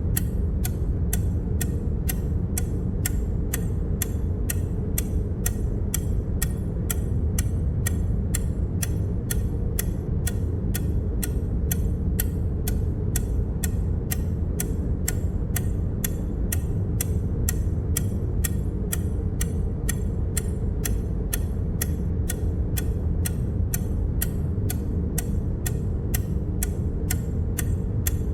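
A ticking sound effect, one sharp click for each unit counted, at an even rate of about two a second, over a steady low hum.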